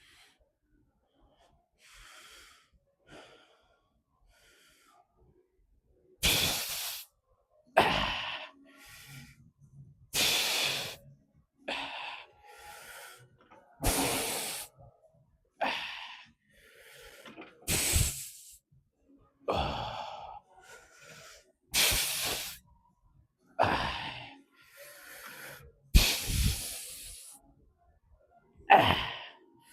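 A weightlifter's forceful, hissing exhalations during a heavy set of reps, about one every two seconds, starting about six seconds in.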